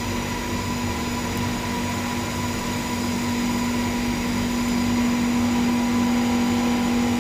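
Kulfi-making brine-tank machine running with a steady electrical hum, several fixed tones over a faint hiss, growing a little louder after the middle.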